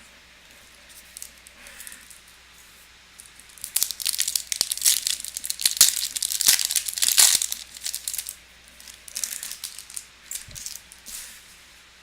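A foil pack of Topps Chrome baseball cards torn open, its wrapper crinkling and crackling in a dense run through the middle, with lighter rustles of the wrapper and cards near the end.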